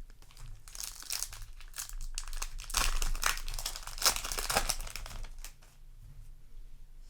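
A foil Yu-Gi-Oh! booster pack wrapper crinkling as it is torn open and handled. The crinkling comes in a busy run, loudest near the middle, and dies down after about five and a half seconds.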